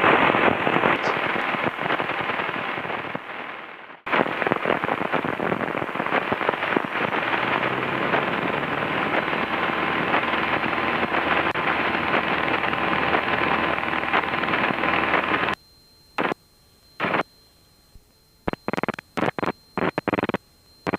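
Cessna's engine and cockpit noise heard through the aircraft's intercom feed at takeoff power during the takeoff roll: a steady, crackly noise. It drops out briefly about four seconds in, then cuts off abruptly about fifteen seconds in, after which only short bursts of it cut in and out.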